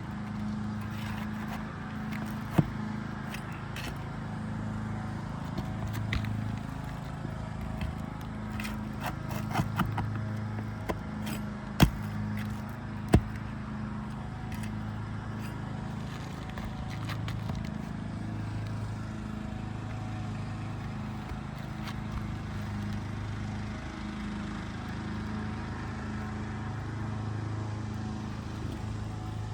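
Steady low engine hum with scattered sharp clicks and knocks of hand tools working on asphalt roof shingles, the loudest knocks about 12 and 13 seconds in.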